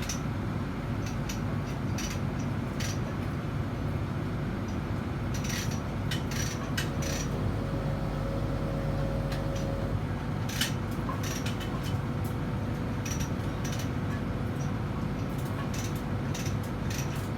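Steady low machinery drone, with sharp metallic clinks and taps from tools and parts scattered through it.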